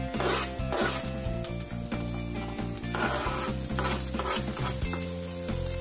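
Mustard seeds, curry leaves, chopped garlic and chilies sizzling and popping in hot oil in a frying pan, with a spoon scraping and tapping against a cutting board and the pan as the chilies are pushed in.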